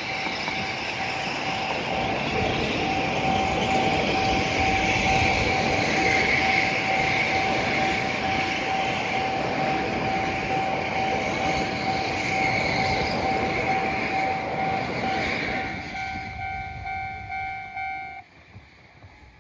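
Akita Shinkansen train passing over a level crossing: a loud rolling rumble that fades about 16 seconds in. Throughout, the crossing's warning alarm sounds as a steady ringing tone, and it cuts off suddenly near the end once the train has passed.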